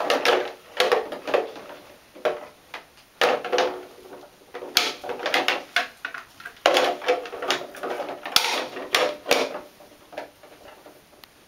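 Plastic toy boat and bath toys clattering and knocking against each other and the plastic bin, a string of irregular knocks that thin out near the end.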